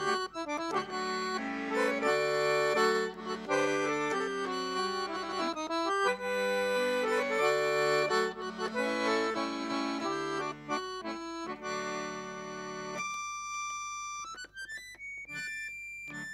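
Dallapè piano accordion played solo: full held chords over a moving bass line. About thirteen seconds in, the bass and chords drop out, leaving a quieter single-note melody.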